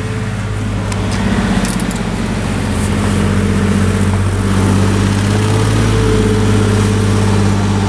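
An engine idling steadily: a low, even hum that holds one pitch throughout.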